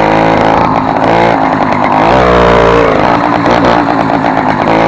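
Small engine of a motorized bicycle revving up and down, loud, through a modified exhaust whose original tip was replaced with a soda-can top, giving it a loud roar like a Yamaha RD 135.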